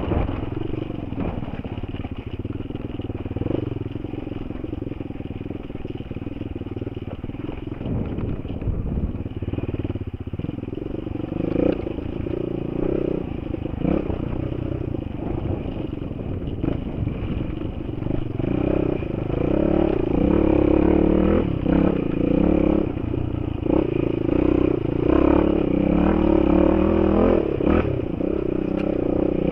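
Enduro motorcycle engine running under load on a rough dirt trail, its revs rising and falling with the throttle and louder through the second half. Frequent knocks and rattles from the bike jolting over stones sound through it, heard from the rider's helmet camera.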